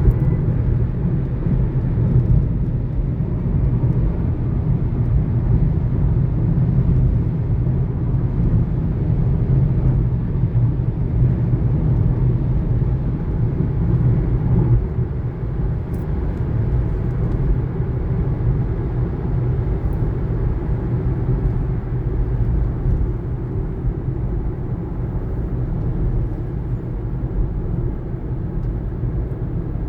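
2019 Kia Niro on the move: a steady low road and tyre rumble that eases slightly in the second half. No clear high-pitched brake whine stands out above it.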